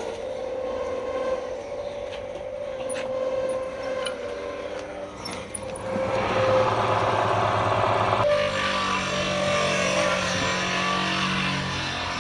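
Wood lathe running with a steady hum. About six seconds in it grows louder and rougher as a turning tool cuts into the spinning wood, and the sound changes abruptly a couple of seconds later.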